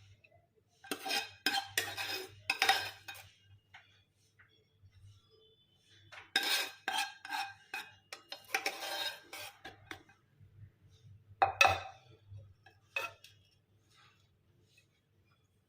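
A serving spoon scooping rice and knocking and scraping against a cooking pot as a rice layer is spread for dum biryani: two spells of clattering, then a couple of single knocks near the end.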